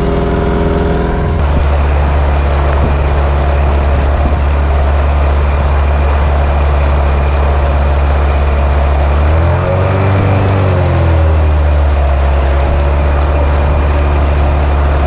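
Mercury 15 hp outboard motor running under way on a small inflatable boat. About a second and a half in it opens up and gets louder. About two-thirds of the way through its pitch rises and falls back once.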